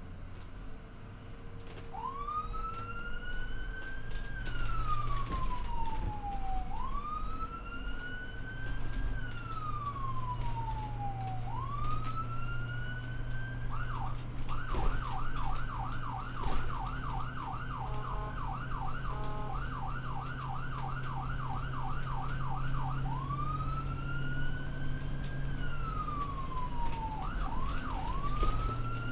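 Ambulance electronic siren in wail mode, a slow rise and fall repeating about every four to five seconds. About halfway through it switches to a fast yelp for around nine seconds, then gives a couple of quick yelps and returns to the wail. A steady low hum runs beneath it.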